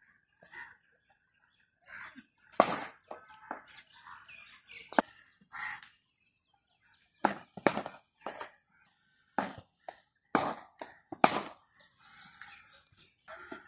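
A series of irregular sharp knocks and cracks of cricket bats striking leather balls in practice nets, the loudest crack about eleven seconds in.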